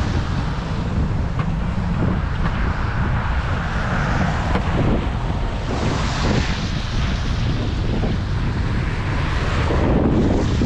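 Wind buffeting the microphone outdoors in a snowstorm: a loud, steady rush that swells slightly near the end.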